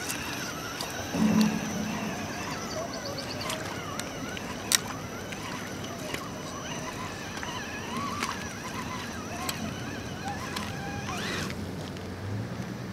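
Radio-controlled Axial Wraith rock crawler driving through a shallow, stony river: its electric drive whines, rising and falling in pitch with the throttle. A short loud low sound comes about a second in, and a single sharp knock near the middle.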